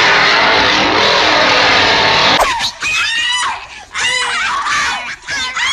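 A chainsaw running loud, cut off abruptly about two and a half seconds in by the rapid, high-pitched shrieks and gibbering of the Zuni fetish doll, coming in short repeated bursts.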